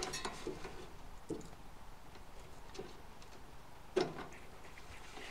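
Faint clicks and taps of fingers handling a small plastic wire connector and its leads, with one sharper click about four seconds in.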